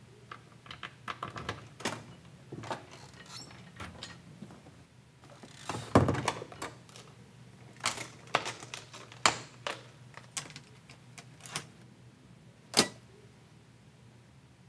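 Door locks and handle being worked on an apartment door: a run of irregular clicks and rattles, with a heavy thump against the door about six seconds in and a single sharp click near the end.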